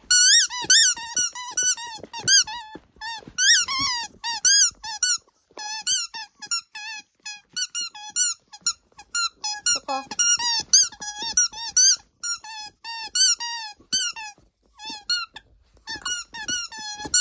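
A dog biting and chewing a rubber squeaky ball, making rapid squeaks several times a second, each squeak rising and falling in pitch.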